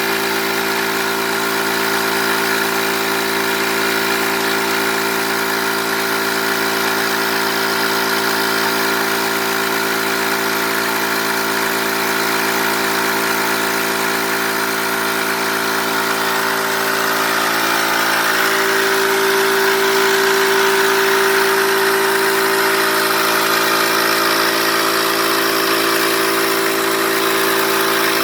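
High-pressure PCP air compressor running steadily under load, a constant mechanical hum made of several steady tones. About two-thirds of the way through, one tone grows stronger and the sound gets slightly louder.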